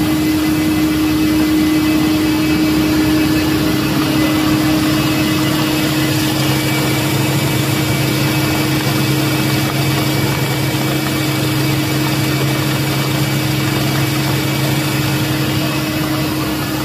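Rice milling plant machinery running: a loud, steady mechanical hum of motors and milling machines with a constant tone, and a lower hum that grows stronger about five seconds in.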